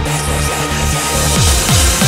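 Dark electronic dance music in a techno-trance style: sustained synth tones and a bright hissing wash over the bass. The kick drum drops out and comes back about a second and a half in.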